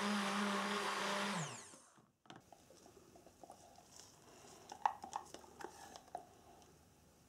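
Stick blender running in a jug of cold process soap batter with a steady hum, blending it to a thick trace for piping; it winds down and stops about a second and a half in. After that only a few faint soft clicks and plastic handling sounds as the thick batter is poured from the plastic jug into a piping bag.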